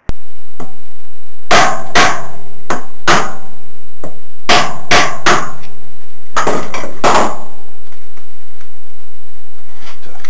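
Hammer blows on the metal drive leg housing, about eleven sharp strikes in three quick groups, with a ringing tone lingering between them: knocking the unbolted housing to free the top of the Gemini 105Mc's drive leg from the bottom.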